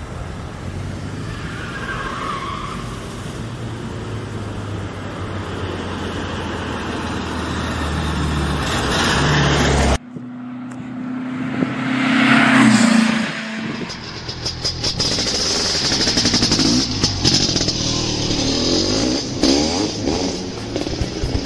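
A motor vehicle engine running and slowly speeding up. It cuts off abruptly about halfway through, and a louder vehicle sound then swells and fades, followed by a busier stretch with many clicks.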